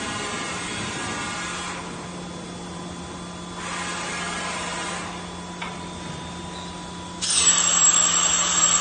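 CNC vertical machining center running: a steady hum with a whine that comes and goes as the spindle head moves. About seven seconds in, a loud hiss starts and holds for about two seconds.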